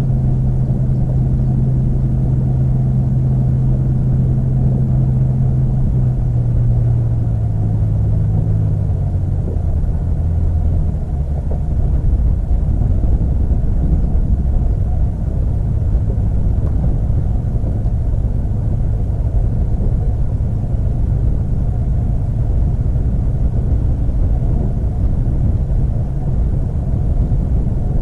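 A motorboat engine hums steadily, then drops in pitch and fades out about ten seconds in, over a continuous low rumble.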